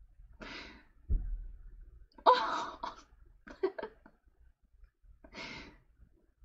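A woman sniffling and taking shaky breaths as she tears up. There are four short, breathy sniffs a second or two apart, and the second has a brief catch of voice.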